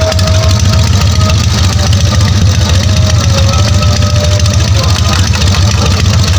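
Harley-Davidson WL 750cc flathead V-twin running steadily at idle, a loud, continuous low pulsing. The engine has been brought back to life after decades of sitting unused.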